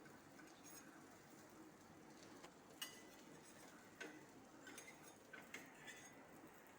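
Near silence with a handful of faint, light clicks and ticks of kitchen utensils while butter is added to a pan, starting about three seconds in.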